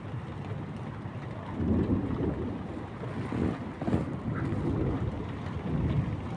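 Thunder rumbling in several rolling waves, starting about one and a half seconds in, over a steady hiss of rain.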